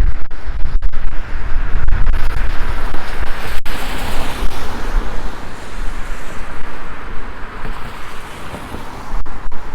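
Road traffic passing on a wet, slushy street: a steady hiss of tyres and engine noise from cars going by, swelling in the middle and easing toward the end, over a low rumble of wind on the microphone.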